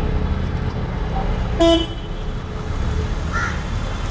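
A vehicle horn gives one short honk about one and a half seconds in, over a steady low rumble of street traffic. A crow caws once near the end.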